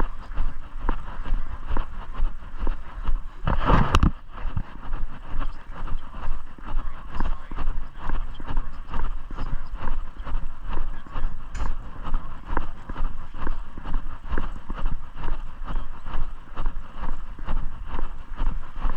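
Footsteps of a person walking at a steady pace, about two steps a second, with a low steady rumble underneath. A louder brief rustle or knock comes about four seconds in.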